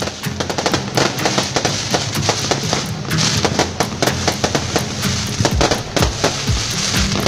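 Fireworks and firecrackers going off, a dense, irregular string of quick pops and bangs, over background music with steady low notes.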